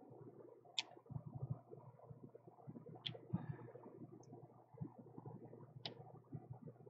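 Quiet handling of glass nail polish bottles and their brush caps on a work table, with three light clicks.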